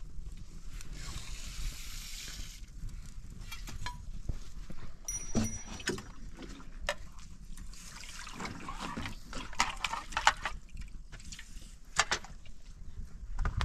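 Metal cookware being handled beside a small wood fire: scattered clinks and knocks, with a short hiss about a second in.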